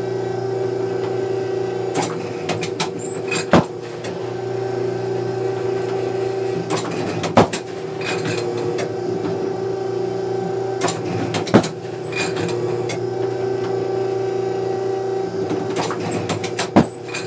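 Automatic clay-target trap machine cycling inside a trap house, over a steady hum. Four times, about every four to five seconds, it makes a cluster of clicks and clanks that ends in a single sharp crack as a clay is thrown.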